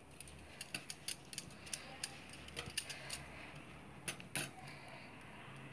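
Bangles clinking in quick, irregular light clicks as hands press and smooth a stack of floured dough rounds on a stone counter.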